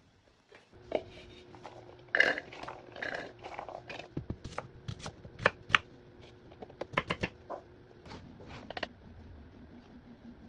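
Scattered clinks, knocks and clatter of kitchenware being handled while cooking, with a faint steady hum underneath for most of it.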